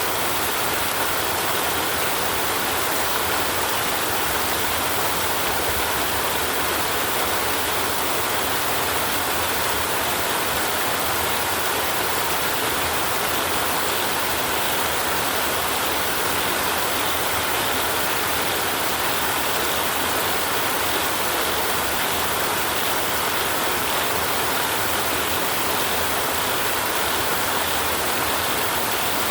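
Steady rain falling, an even hiss that holds one level throughout.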